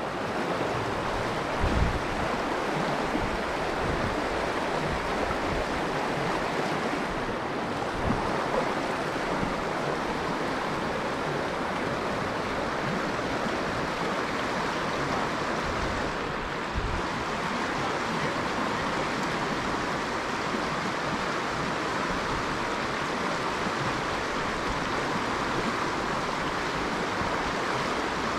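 Shallow river running fast over a rocky riffle, a steady rushing hiss, with a few brief low thumps.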